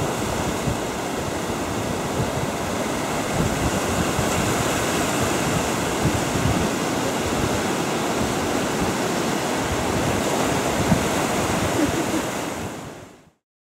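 Sea surf washing and breaking over rocks, a steady rushing noise that swells a little and fades out near the end.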